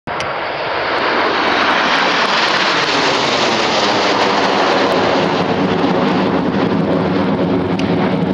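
A formation of BAE Hawk T1 jet trainers flying overhead, their turbofan engines making a loud, steady rushing noise whose pitch sinks over the first few seconds as they pass.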